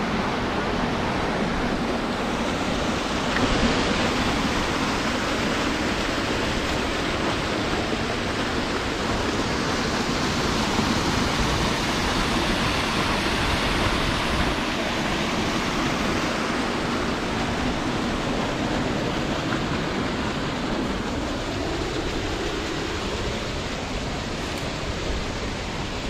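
Water rushing steadily down a small rocky cascade into a pool.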